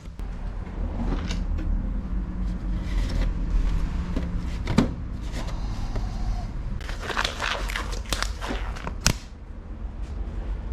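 Workshop handling noises of work on a bicycle: scattered clicks and knocks, a sharp knock about five seconds in, and a rattling, scraping stretch ending in another sharp knock near nine seconds.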